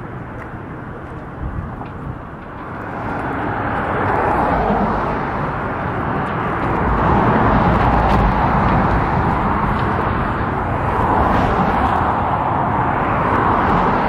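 Road traffic rushing past, a steady noise of tyres and engines that swells about three seconds in and stays loud.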